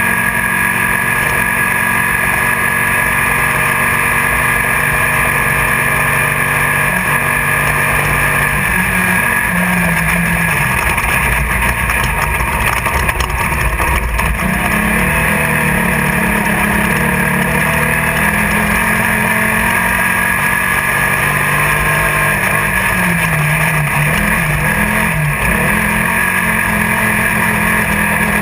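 Class 1600 off-road race car's air-cooled Volkswagen 1600 cc engine running hard, heard from inside the car. Its pitch rises and dips repeatedly with the throttle, over a constant loud rush of noise.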